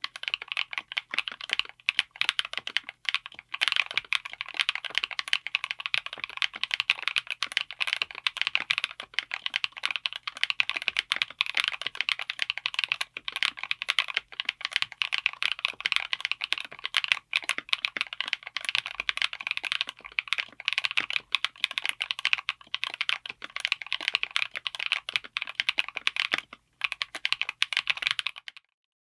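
Fast, continuous typing on a mechanical keyboard fitted with Gateron Smoothie Chocolate tactile switches (all-POM housings) in an aluminium case with an FR4 plate, giving a dense stream of keystroke clicks. The typing pauses briefly near the end.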